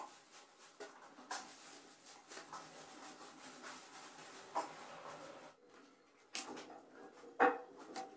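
Plastic bags rustling and crinkling as they are handled and knotted shut, with scattered light clicks. After a short break come a few sharp knocks, the loudest about seven and a half seconds in.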